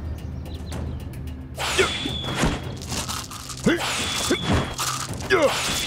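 Martial-arts film fight sound effects: three sudden whooshes about every two seconds, each with a high metallic ring, over low background music.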